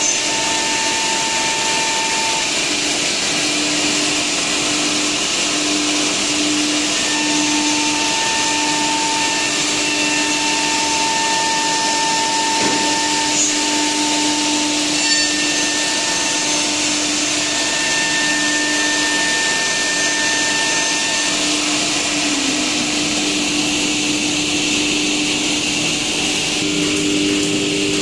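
CNC router with a saw unit and dust extraction running: a steady, loud rush of air through the extraction, with humming motor tones that come and go.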